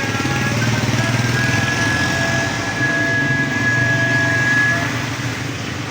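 A small engine running steadily, with a thin high-pitched tone held over it for a few seconds.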